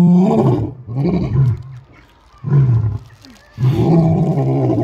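Lion roaring: a run of deep calls, each rising and then falling in pitch and lasting under a second to about a second, four in a row with short pauses between them.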